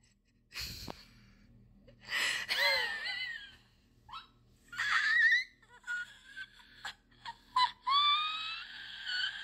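A dog whining in high, wavering whimpers, several short ones and a longer drawn-out whine near the end, with a soft thump near the start.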